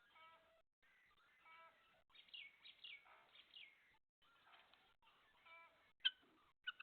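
Faint chickens calling: a string of short pitched calls with brief gaps, several falling in pitch. A sharp click about six seconds in.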